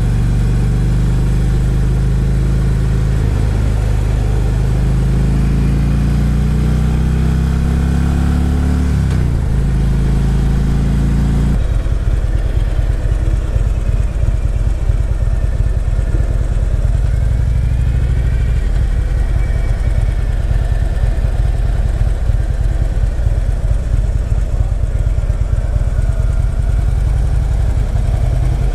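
Harley-Davidson touring motorcycle's V-twin engine running under way, with wind noise. The engine pitch climbs from about 3 seconds in, breaks around 9 seconds, and about 11 seconds in drops to a lower, pulsing rumble.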